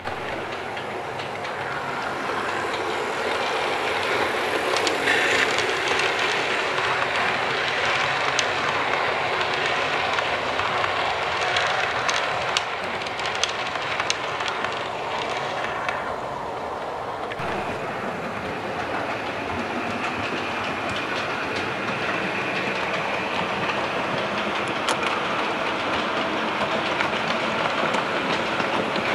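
Model railway trains running on the layout's track: a steady rumble of wheels on rail with clicking over the rail joints. The sound changes suddenly a little past halfway, when another train comes by.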